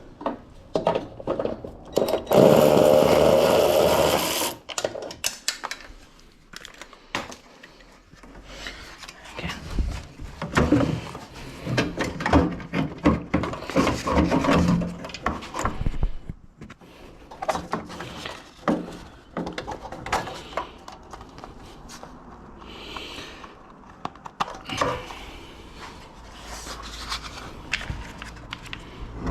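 Hand dismantling work on a van's front end: a power tool runs for about two seconds shortly after the start, followed by repeated knocks, clicks and rubbing of tools and parts.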